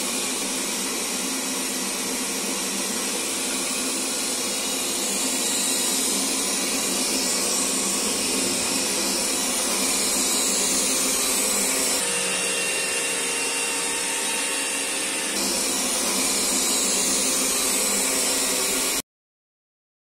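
Xiaomi Mi Robot robot vacuum running with a steady whirring hiss. The tone shifts slightly about twelve seconds in and again a few seconds later, and the sound cuts off suddenly near the end.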